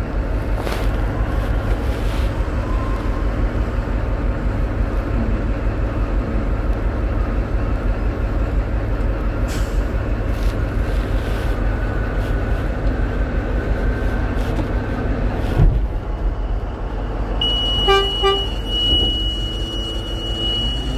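Steady low rumble of a large mining haul truck's diesel engine, heard from inside the cab. Near the end a few short beeps sound, then a steady high-pitched tone holds to the end.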